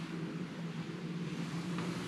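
Steady low mechanical hum, several low tones held over a faint hiss.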